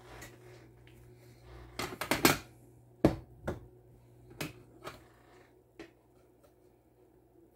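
Hard knocks and clatters of a slotted wooden soap-cutting box being handled. There is a quick cluster about two seconds in and a sharp knock a second later, then a few lighter knocks as a steel cutter blade is set into the box's slots.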